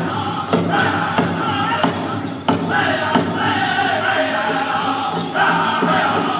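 Powwow drum group singing a men's chicken dance song: several men's voices in unison over a big drum struck at a steady beat, about one and a half beats a second.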